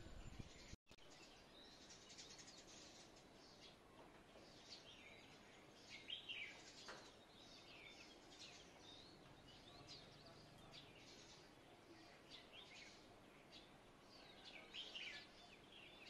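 Faint chorus of small songbirds chirping and twittering, many short overlapping calls, some falling in pitch, with a brief cut-out to silence about a second in.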